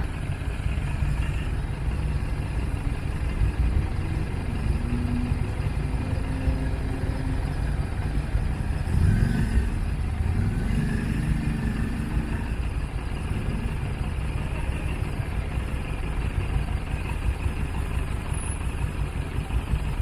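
Harley-Davidson V-twin motorcycle engines running at low revs as learner riders ease off slowly in first gear, with a short rise in engine pitch about nine seconds in.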